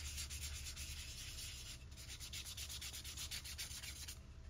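Abrasive fleece on a small cork block rubbed in quick circles over a wooden revolver grip: a soft, even run of scratchy sanding strokes that knocks down wood fibres raised by wetting the grain. The strokes stop near the end.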